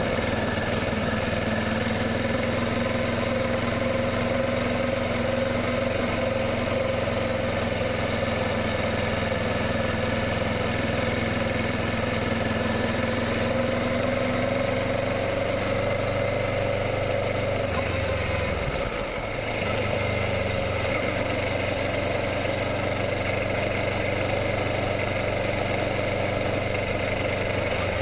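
Kawasaki Ninja 650's parallel-twin engine running at a steady pitch. The engine note shifts and briefly dips about two-thirds of the way through, then settles into a new steady note.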